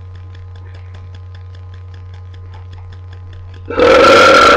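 A young woman's long, loud burp that begins near the end, after a few seconds of only a steady low hum and faint regular ticking. It is a good one by her own account.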